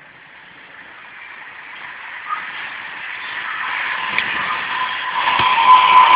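Class 390 Pendolino electric train approaching at speed on the main line. A rush of wheel-on-rail noise grows steadily louder throughout, with a steady high whine in it and a few light clicks.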